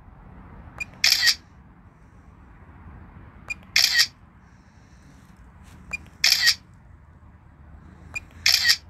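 The DJI Fly app's camera shutter sound plays four times, about two and a half seconds apart, each one marking a photo taken by the DJI Mavic 3 on a timed interval. Each is a faint tick followed by a short, crisp shutter click.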